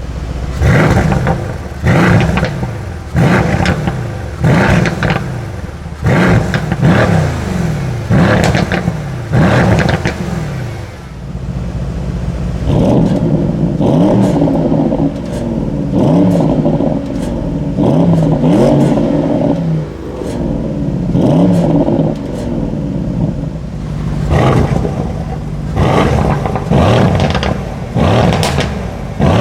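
Sports exhaust of a 4.0-litre twin-turbo V8 car being revved over and over: sharp blips about every second and a half, then a stretch of longer, held revs in the middle, then quick blips again near the end.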